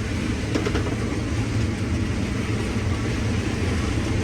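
Combine harvester running steadily, heard from inside the cab as a constant low hum with a broad even noise over it.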